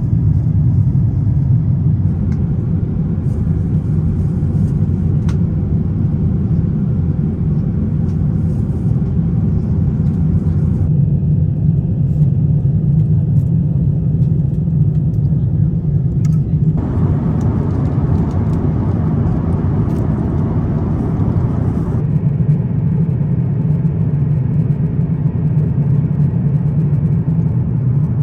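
Airbus A350-900 cabin noise heard from an economy seat: a loud, steady low rumble, with the hiss above it changing abruptly a few times.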